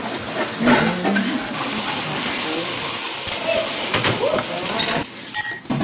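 Thick sauce cooking in a wok, sizzling with a steady hiss, with a few light knocks.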